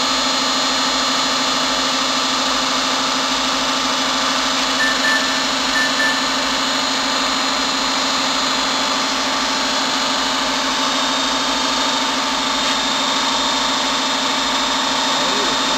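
Semi-automatic rubber press machine running: its motor and hydraulic pump give a steady mechanical hum with a constant low tone.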